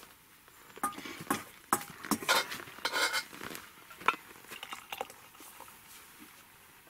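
Camp dishes and tea things clinking and knocking: a string of sharp clicks and clatter, busiest about two to three seconds in, then thinning out.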